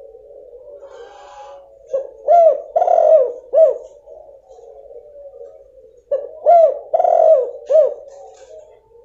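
Female spotted dove (tekukur) cooing: two phrases of about four low, rounded coo notes each, about four seconds apart.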